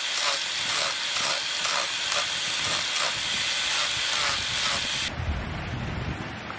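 Angle grinder with a sanding disc running at speed against a wooden knife handle: a loud high hiss that swells two or three times a second. It cuts off abruptly about five seconds in, leaving a low rumble.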